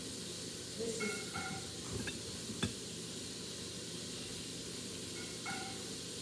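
Steady background hiss with a low hum, broken by a few light clicks and taps about two seconds in, the sharpest a little after, as a small plastic bottle is handled.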